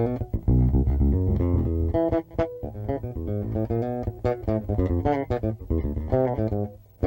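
Solo electric bass playing a quick run of plucked notes, with a new note every fraction of a second and a strong low end.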